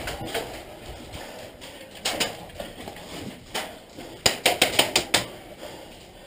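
Airsoft guns firing sharp cracking shots. A single shot comes about two seconds in and another about three and a half seconds in, then a quick string of about six shots in a second.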